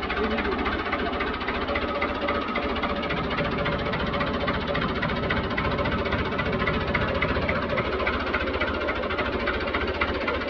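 Fiat 640 tractor's four-cylinder diesel engine running steadily, with an even, rapid firing beat.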